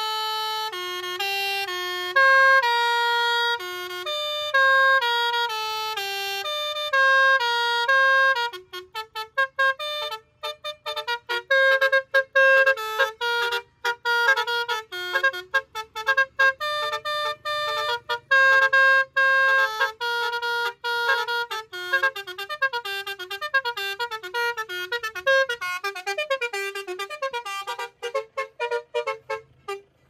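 Basuri multi-tone musical car horn on a Toyota Fortuner playing a melody: held notes for the first eight seconds or so, then a fast run of short, clipped notes that cut sharply on and off.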